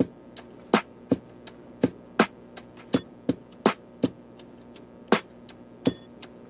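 Background music with a steady, sparse percussive beat of about three hits a second over faint sustained low tones.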